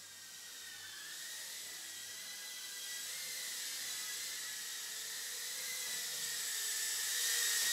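Eachine E011 micro quadcopter's tiny brushed motors and propellers whining in flight, a high thin whine that wavers slightly in pitch and grows steadily louder as the drone comes closer.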